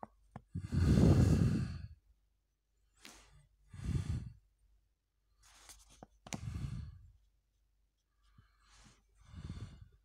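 A person breathing close to the microphone: four long breaths two to three seconds apart, the first the loudest. A few soft clicks come from handling the comic's paper pages.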